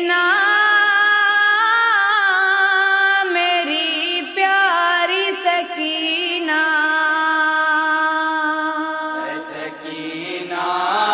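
A solo voice chants an Urdu noha, a Shia lament, in long held notes that bend and waver, with no instruments. Lower backing voices join near the end.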